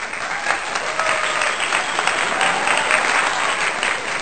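Crowd applauding: many hands clapping at once, a dense, even patter.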